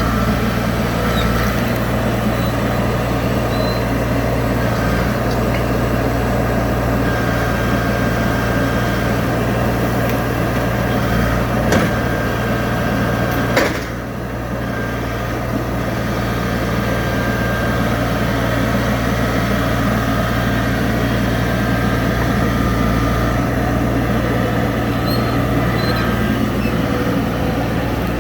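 New Holland skid steer's diesel engine running steadily as the machine works on Grouser over-the-tire tracks. Two sharp knocks come about halfway through, and the machine sound dips briefly after the second.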